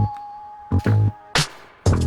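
Background electronic music with a beat: a held note fades out at the start, a few drum hits sound through the gap, and the full beat comes back near the end.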